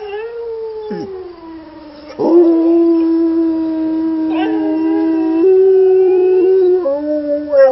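English Springer Spaniel howling: a first howl falls in pitch, then a long, loud, steady howl starts about two seconds in. A second howl at a different pitch overlaps it through the second half, and the pitch drops near the end.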